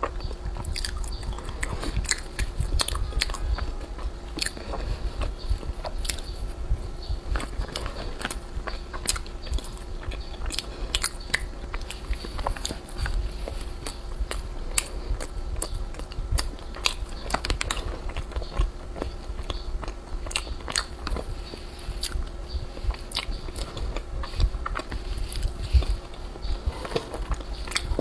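Close-up eating sounds of a flaky custard pastry with a mochi layer and runny custard centre: many short crackly clicks from bites and chewing of the layered crust, with sticky mouth sounds, over a faint steady hum.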